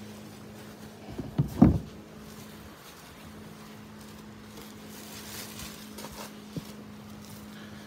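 A short cluster of plastic knocks about one and a half seconds in, as flexible-plastic duck decoys are set down on a plastic kayak deck, then a single click later on. A steady low hum runs underneath.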